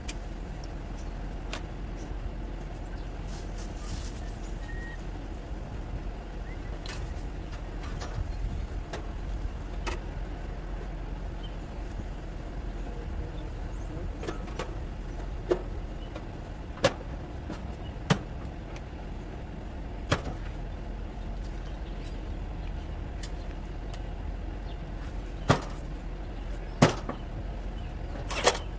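A steady low machine hum, with about seven sharp clicks or knocks scattered through the second half.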